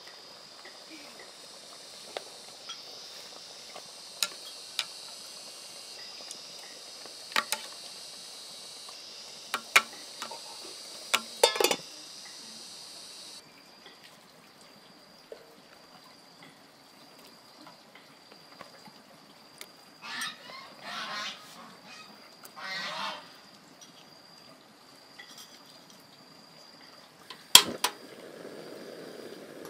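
Farm poultry calling a few times about twenty to twenty-three seconds in, among scattered sharp knocks and clicks. A steady high-pitched whine underneath stops suddenly about halfway through.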